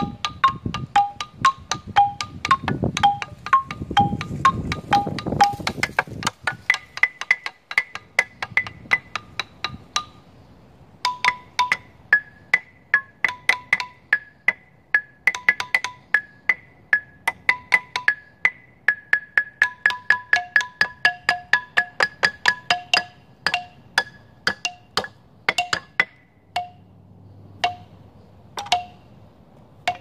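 Outdoor xylophone played by hand, quick single struck notes several a second on a small set of pitches, wandering up and down in loose runs. The notes pause briefly about ten seconds in and stop near the end.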